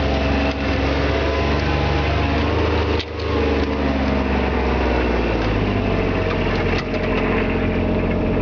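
Vehicle engine running steadily, its low note dropping a little about five and a half seconds in.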